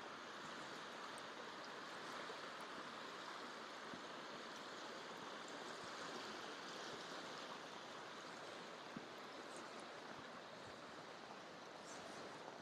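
Steady rush of creek water running over the falls of McGalliard Creek, heard faintly and evenly.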